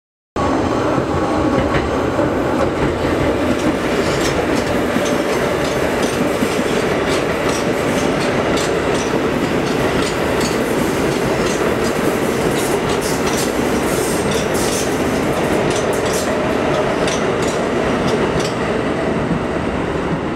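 New York City subway train of R160 cars running past on an elevated steel viaduct: a steady loud rumble with many rapid wheel clicks over the rail joints, cutting in after a brief moment of silence at the start.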